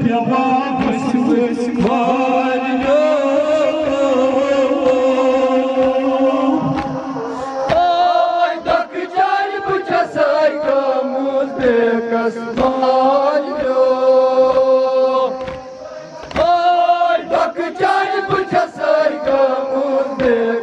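A group of men chanting a Kashmiri noha, a Shia mourning lament, led over microphones, the voices held in long drawn-out lines. From about eight seconds in, sharp slaps in a steady rhythm, the beating of chests (matam), keep time with the chant.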